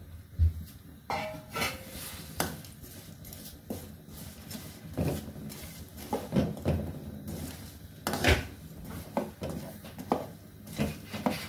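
A metal spatula scraping and clinking against a metal pan in irregular strokes as jaggery is stirred into hot water to dissolve it, with one sharper knock about eight seconds in.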